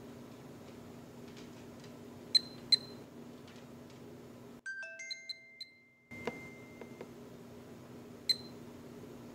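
Digital kitchen timer beeping as its minute button is pressed: a pair of short, sharp, high beeps a couple of seconds in and another near the end, over a steady low background hum.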